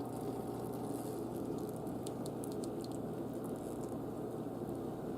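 Pot roast sauce still simmering in the pan after the burner is shut off, with small bubbling pops and crackles over a steady low hum.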